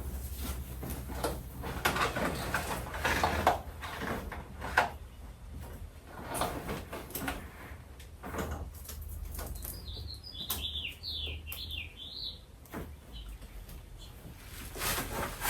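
Rustling and knocking of plastic prop parts being handled during assembly, with a short run of high chirps about ten seconds in.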